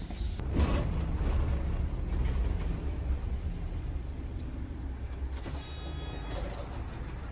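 Interior of a moving city bus: steady low engine and road rumble, with a brief high squeal about six seconds in.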